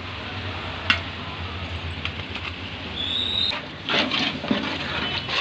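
Steady rushing noise of a gas burner under a large cooking pot, with a sharp click about a second in. From about four seconds in, a ladle stirs and scrapes thick chicken masala in the metal pot.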